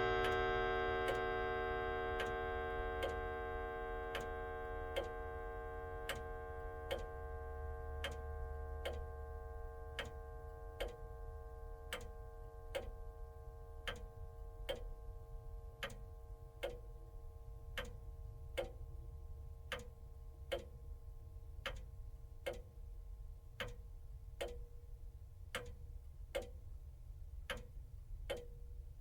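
Wall clock ticking steadily, about once a second, while the ring of its last chime slowly fades out over the first ten seconds or so.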